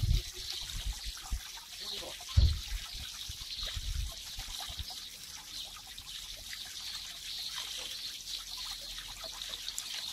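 Water trickling steadily, with a few low thumps in the first few seconds, the loudest about two and a half seconds in.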